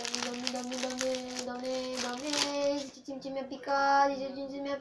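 A boy singing long held notes: one steady note that steps up in pitch about two seconds in, then after a short break another held note. Under the first note a plastic wrapper crinkles as it is torn open.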